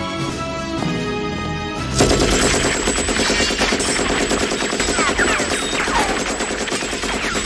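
Film soundtrack: dramatic orchestral music for about two seconds, then sudden, sustained rapid machine-gun fire in a battle scene, with the music carrying on underneath.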